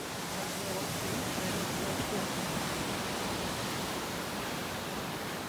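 Surf from a rough sea breaking and washing against a stone seawall and sandy beach: a steady rushing noise that swells a little a second or so in.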